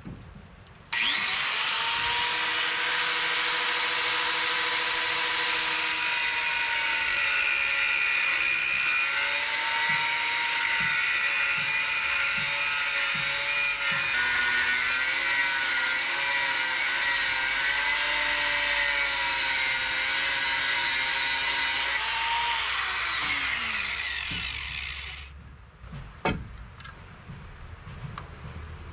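Angle grinder with a cutting disc cutting steel angle bar: the motor spins up about a second in to a high whine over a dense grinding hiss, its pitch wavering as the disc bites into the steel, then it is switched off and winds down over a few seconds. A couple of sharp knocks follow near the end.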